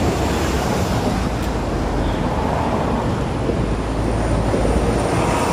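Steady road traffic noise: a low rumble of vehicles passing along the street.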